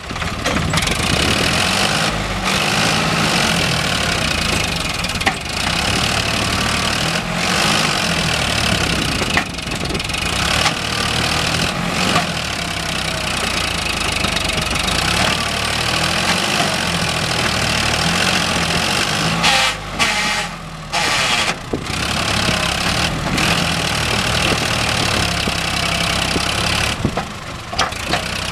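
Sonalika tractor's diesel engine running under heavy load as the tractor struggles to pull a trolley loaded with potato sacks through soft soil, its rear wheels spinning and digging in. The engine runs steadily, with its sound dipping briefly a few times in the last third.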